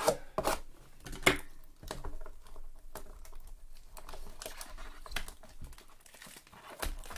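A 2022 Topps Gypsy Queen blaster box being handled and torn open by hand: crinkling and tearing of its packaging, with a few sharp rustles, the loudest near the start and about a second in.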